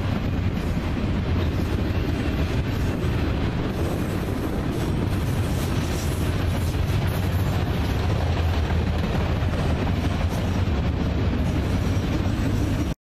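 Freight train of enclosed autorack cars rolling past close by: a steady, loud rumble of wheels on rail.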